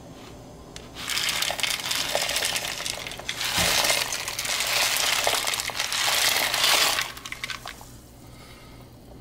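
Dried pinto beans poured from a plastic colander into a stainless steel stockpot of water: a steady rattle and splash that starts about a second in and lasts about six seconds, then a few scattered ticks as the last beans drop.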